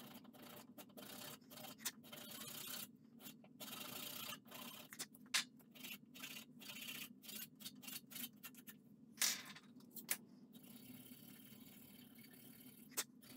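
Round rat-tail file rasping on a small wooden lure blank held in a vise, in a run of short, irregular strokes; a few strokes are sharper and louder than the rest.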